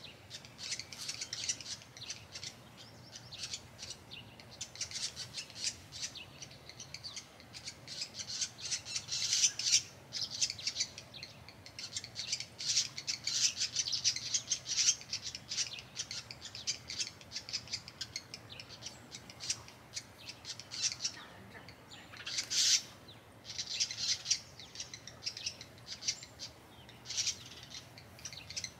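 Small songbirds chirping and twittering in quick strings of short, high calls, with one louder call about two-thirds of the way through.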